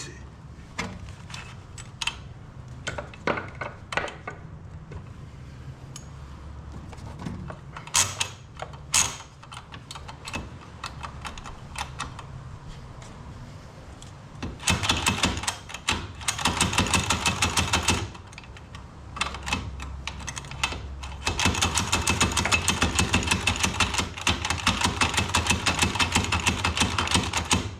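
Stainless steel retractable ratchet strap mechanism clicking: scattered single clicks at first, then, from about halfway, several long runs of rapid, even ratcheting clicks.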